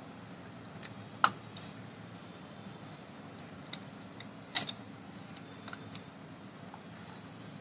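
Small metal clicks and taps of a tractor starter motor's parts being fitted by hand into its drive-end housing, with two sharper knocks, about a second in and a little past the middle.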